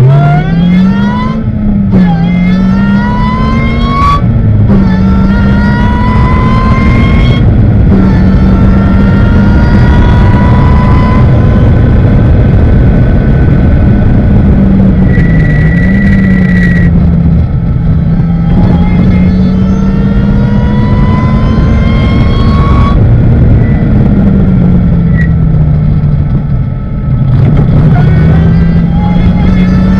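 Ariel Atom race car's engine heard from on board at racing speed, its pitch climbing and dropping again and again as it pulls through the gears and lifts for corners, over a heavy rush of wind and road noise.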